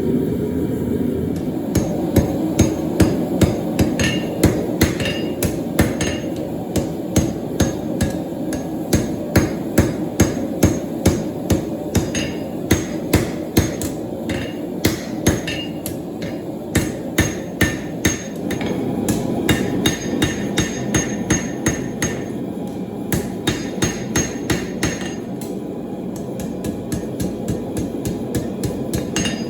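Hand hammer forging steel on an anvil: ringing blows in runs of about two a second, with short pauses between runs, over a steady rushing noise.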